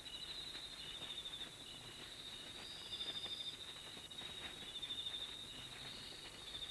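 Night insects calling: a steady, high, pulsing trill with a second caller giving short chirps about three times a second.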